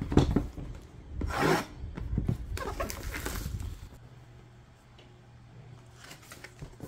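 A cardboard box being handled and turned over on a cloth-covered table, making rubbing and scraping noises in several bursts over the first four seconds, then going quieter.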